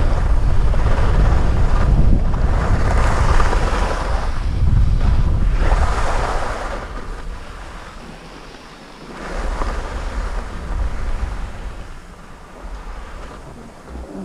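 Wind buffeting the microphone, with skis hissing and scraping over snow in several surges as the skier turns; louder in the first half, easing after about seven seconds.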